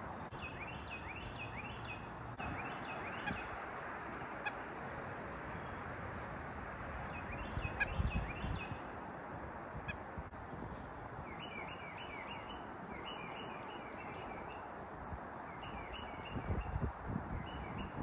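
Small songbirds calling in quick runs of short, falling chirps. They come in bursts near the start and around the middle, then almost without pause in the second half, with thin high notes above them, over a steady outdoor hiss.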